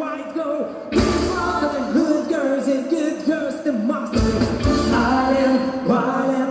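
A pop-rock song with a singing voice over the accompaniment; the bass and drums come in heavily about a second in and again around four seconds.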